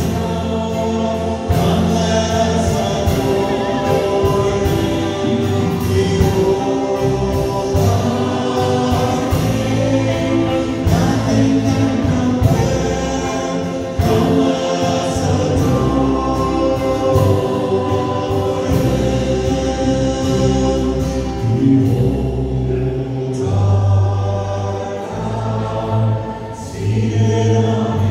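A congregation singing a worship song together, accompanied by acoustic guitars and a small band with a steady strummed rhythm and bass.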